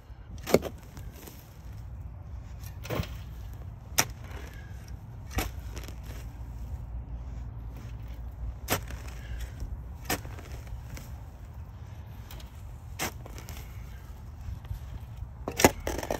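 Steel shovel digging into soil, a short sharp chop of the blade every one to three seconds, over a low steady rumble.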